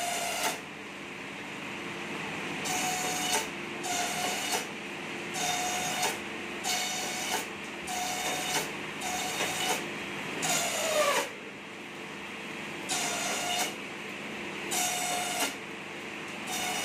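Small bamboo slicer for satay skewers running under test, its motor humming steadily. Material is fed through repeatedly, giving a series of short, harsh cutting bursts, roughly one every second or so with a few longer gaps. One burst near the middle drags the pitch down as the machine is loaded.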